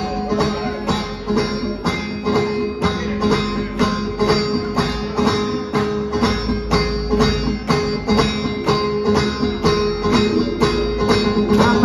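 Live band playing an instrumental passage, banjo and steel guitar over a steady fast drumbeat.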